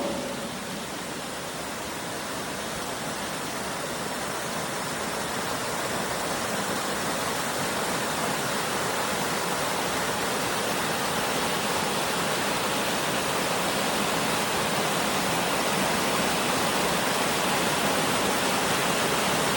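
Mountain river rushing over rocks, a steady wash of water that grows gradually louder.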